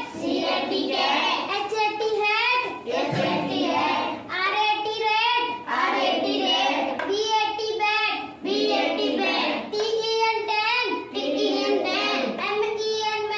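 Children's voices chanting an English spelling drill in a sing-song rhythm, spelling out short words letter by letter and then saying the word, in short repeated phrases.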